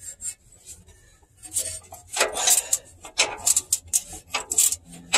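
Metal hand tools clinking and scraping against bolts and steel under a vehicle, in irregular bursts of sharp clicks through the second half.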